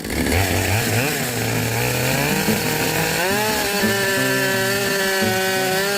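Chainsaw engine running at lower revs, then revving up about three seconds in and holding a high, steady pitch.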